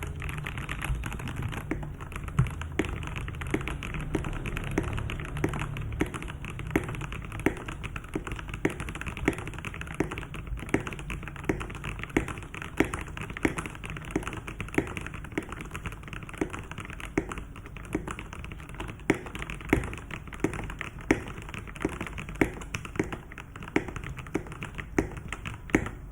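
Typing on a Keydous NJ81 mechanical keyboard with Gateron Yellow Pro linear switches on a brass plate: a steady run of keystrokes, with louder strokes landing about twice a second.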